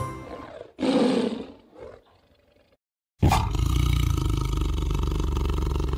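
A large animal calling: a short rough call about a second in, then after a pause a long, steady, low call that starts just past three seconds and carries on.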